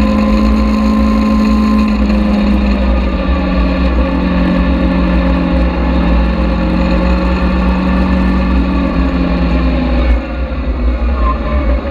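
Caterham Seven engine running hard at track speed, heard from the open cockpit with heavy low wind rumble. Its note eases slowly down, then drops away sharply about ten seconds in as the throttle comes off.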